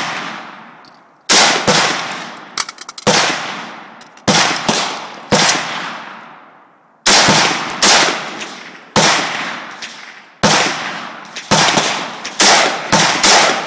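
Rifle shots fired at irregular intervals, about a dozen, each sharp crack followed by a long echoing decay. Several come in quick succession near the end.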